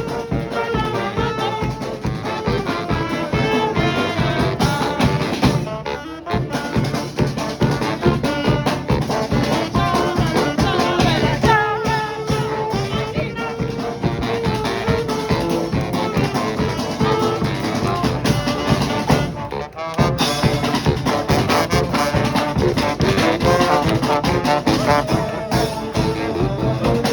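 Brass band playing live, horns carrying the tune. The sound dips briefly twice, about six and twenty seconds in.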